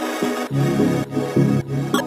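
Background music: the instrumental backing of a song between sung lines, with a steady beat.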